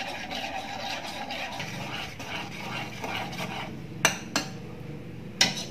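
Metal spoon stirring and scraping melted caramelised sugar in a metal pot, worked until it foams. A few sharp clinks of the spoon against the pot come near the end.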